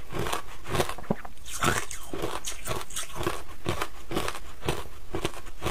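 Crushed ice crunched between the teeth and chewed, a quick run of crisp crunches, a few a second.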